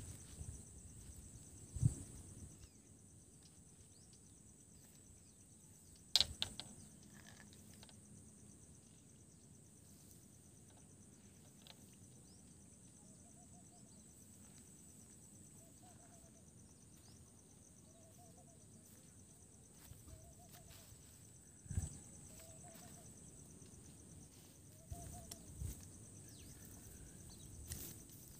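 Steady high-pitched drone of crickets, with faint short calls repeating every second or two in the middle stretch and a few sharp knocks scattered through.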